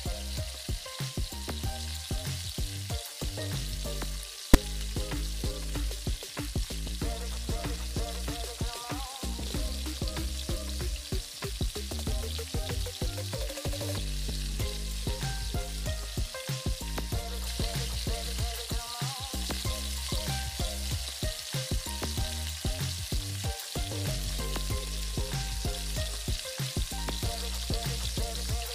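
Spinach paratha batter sizzling as it fries in hot oil in a pan, a steady hiss throughout. Background music with a steady beat plays over it, and a single sharp click comes about four and a half seconds in.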